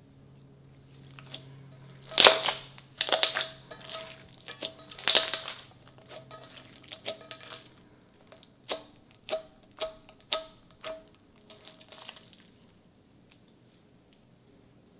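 Sticky slime being stretched, folded and pressed by hand, giving a run of irregular wet pops and crackles. The loudest come about two and five seconds in, and they stop a couple of seconds before the end.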